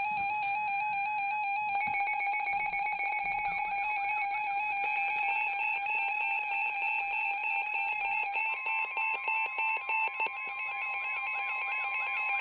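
Weather radio warning alert: a steady, high-pitched electronic alarm tone with a fast pulsing beneath it. A second steady tone just above it joins about eight and a half seconds in.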